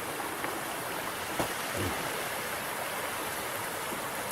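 Stream water running steadily, an even rushing hiss.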